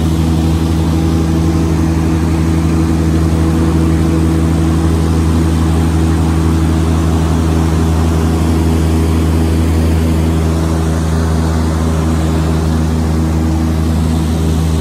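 Boat engine running steadily while the boat is under way, a constant low drone with no change in speed.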